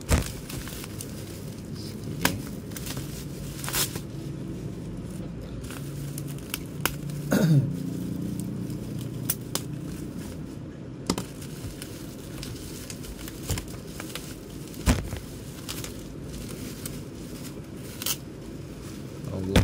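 Bubble wrap and plastic packaging crinkling and tearing as a parcel is unwrapped by hand, with scattered sharp crackles and snaps every second or two.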